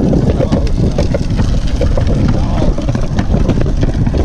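Steady rumbling road noise of small wheels rolling fast over a concrete sidewalk, with wind buffeting the microphone and scattered clicks and rattles throughout.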